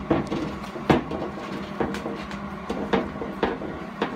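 Irregular sharp metal clicks and knocks from pliers gripping and twisting a broken steel exhaust manifold stud to work it out of an aluminum cylinder head, over a steady low hum.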